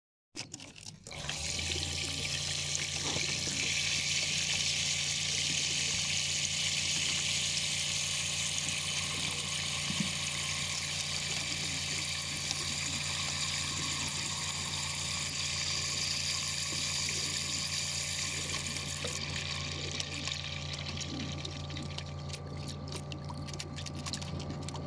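Water rushing along the long drinking trough of a pigeon transport trailer as it fills, over a steady low hum; the rush eases near the end.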